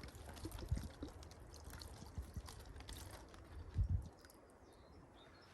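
Water sloshing and trickling inside a water drum as a little water is swirled around to rinse out leftover dust and sand, with scattered small knocks and a few low thumps, the loudest about four seconds in.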